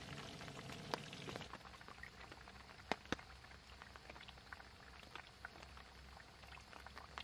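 Hot oil crackling and popping in a frying pan, thinning out after about a second and a half. A few sharp clicks stand out, two of them close together about three seconds in.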